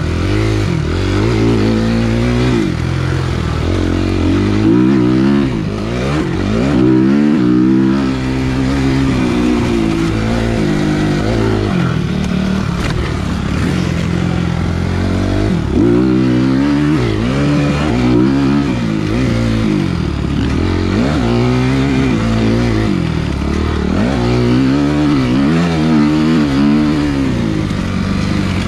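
Suzuki motocross bike's engine heard from on the bike, revving up hard and dropping back again and again as it is ridden around a dirt track, the pitch rising and falling every couple of seconds with gear changes and turns.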